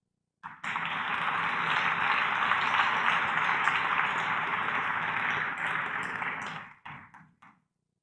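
Audience applauding for about six seconds, then dying away near the end.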